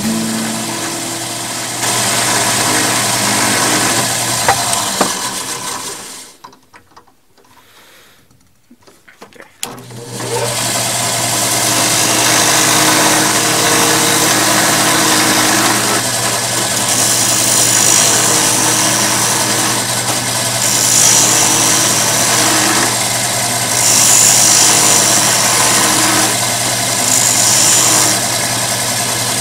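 Drill press motor running steadily, spinning a wooden mandrel. It winds down about six seconds in and starts up again about four seconds later. In the second half come several bursts of higher hiss as the workpiece is held against the spinning mandrel with pliers.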